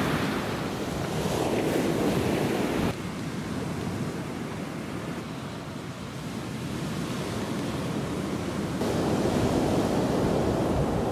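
Sea surf washing onto the shore, with wind buffeting the microphone. The wash drops off suddenly about three seconds in and comes back louder near the end.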